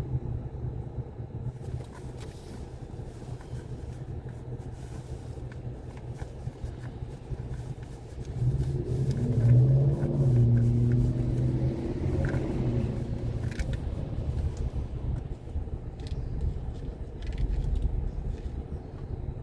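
A car being driven: steady engine and road rumble. About eight seconds in, the engine note grows louder and rises a little in pitch for four or five seconds, then settles back.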